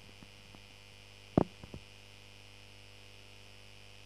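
Steady electrical mains hum, with a few faint clicks and one sharper knock about a second and a half in.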